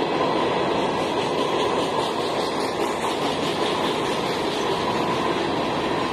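Freight train of open-top hopper cars rolling past a level crossing: a steady noise of steel wheels on the rails.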